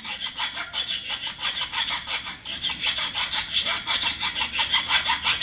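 Hand file rasping back and forth on a plastic dash-kit piece, quick even strokes about five a second, filing a small nub flat so the piece sits flush on the radio.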